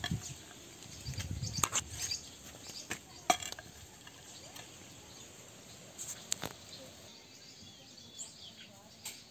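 Handling noise from a phone being carried across sandy ground: a low rumble in the first two seconds and a few sharp clicks and knocks, the loudest about three seconds in. A faint bird chirp near the end over quiet outdoor ambience.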